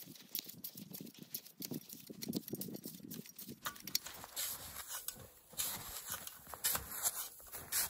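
Footsteps trudging through deep, light powder snow: a run of irregular soft crunches.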